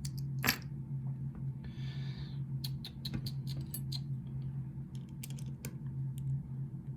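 Small clicks and taps of a challenge padlock and its key being handled, with a brief scrape about two seconds in, over a steady low hum.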